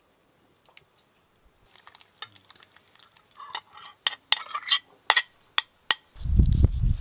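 A metal spoon clinking and scraping against a porcelain bowl as the sour cream dressing is scraped out into the soup pot, in a run of sharp clinks and short scrapes. Near the end a loud low rumble sets in.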